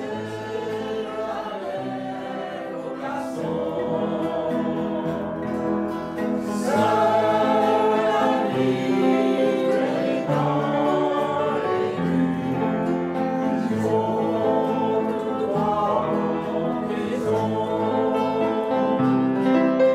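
A small mixed choir of men's and women's voices singing a song together with instrumental accompaniment, swelling louder about a third of the way in.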